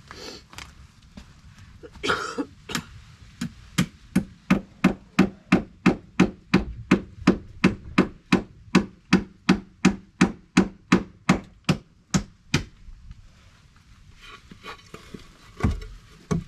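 Hammer driving a nail: a long, steady run of about thirty blows, about three a second, that stops about twelve seconds in.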